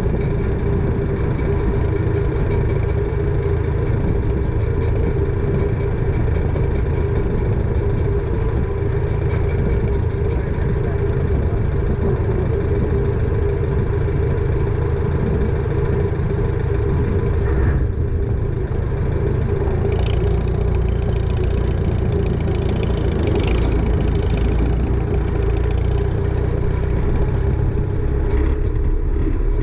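Farmall H tractor's four-cylinder engine running steadily at a constant speed as the tractor drives along, heard up close.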